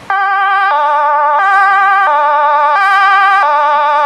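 Dutch fire brigade two-tone siren on a Volkswagen LT fire van, switching on suddenly just after the start and then alternating between a high and a low tone about every two-thirds of a second, each tone wavering slightly. It is being sounded for a loudness test.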